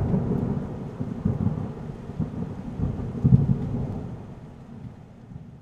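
Thunder sound effect: a low rolling rumble with a hiss above it, swelling about three times and dying away toward the end.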